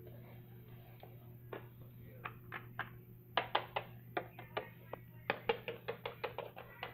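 Small plastic toy figures tapped on a wooden floor as they are hopped along, a run of sharp clicks that gets quicker and louder about halfway through, over a faint steady hum.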